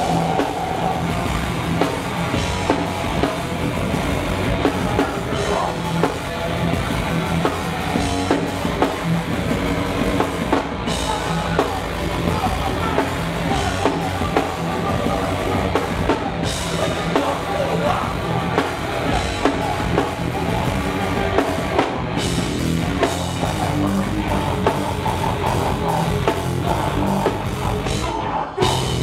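Hardcore punk band playing live and loud: distorted electric guitars, bass and drums with a vocalist shouting into the microphone. The full band kicks in right at the start and drops out briefly near the end.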